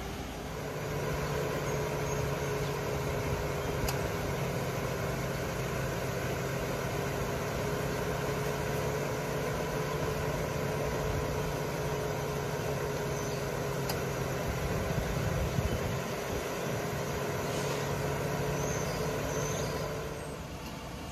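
Ford Crown Victoria Police Interceptor's 4.6-litre V8 idling with a steady low hum, which grows louder about a second in and eases near the end.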